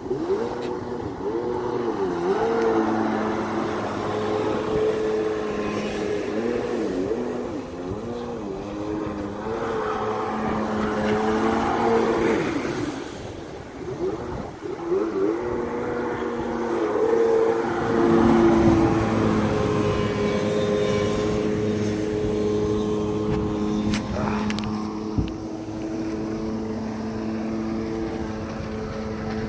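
Kawasaki 750 STS jet ski's two-stroke twin engine running hard as the craft carves turns on the water, its pitch swinging up and down through the first half and then holding steadier, with a surge in loudness past the middle.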